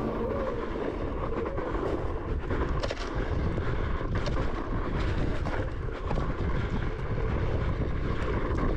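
Wind rushing over the camera microphone while riding fast down a dry dirt trail, with the rumble of wheels rolling over the dirt and a few short knocks and rattles from bumps.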